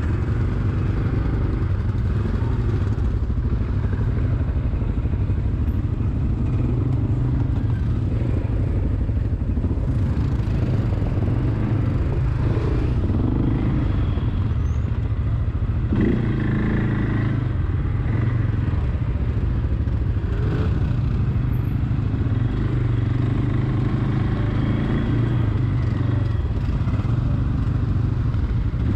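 ATV engine running under way on an off-road trail, a steady low rumble with the revs rising and falling several times.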